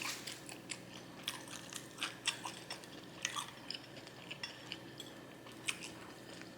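Someone chewing and eating fast food: a scatter of short, sharp mouth clicks and smacks, a few every second.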